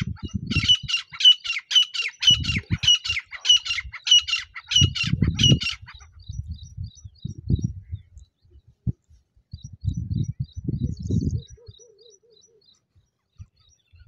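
Grey francolin call played from a handheld mobile phone as a lure: a fast run of loud, harsh repeated notes, about three a second, that stops about six seconds in. Low rustling and thumps come and go underneath, with faint high chirps later on.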